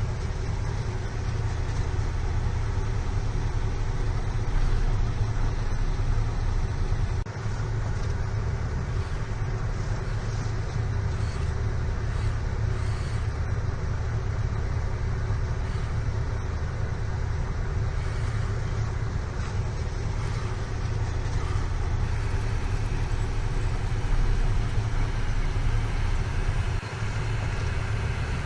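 Steady, continuous motor drone with an even low hum, typical of a running vehicle motor.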